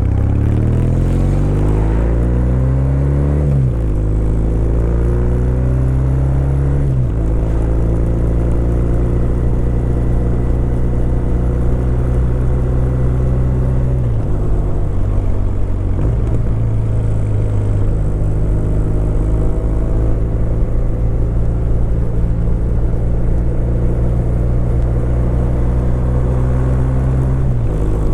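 Kawasaki W800's air-cooled parallel-twin engine accelerating through the gears: the note climbs and drops sharply with an upshift twice in the first seven seconds, then runs at a steady cruise, dipping briefly around the middle and shifting again near the end.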